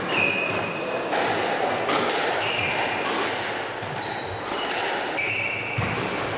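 Squash players' court shoes squeaking on a wooden sprung floor: four or five short, high squeaks as they shuffle and plant their feet, with a few sharp knocks in between, in the echo of a squash court.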